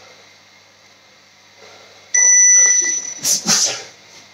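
Interval round timer giving a single steady electronic beep of about a second, starting abruptly about two seconds in, marking the end of a work interval. Two short noisy bursts follow.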